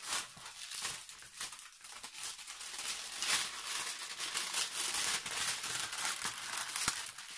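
Clear plastic protective film being peeled and lifted off a diamond painting canvas, rustling and crinkling irregularly, with one sharp click near the end.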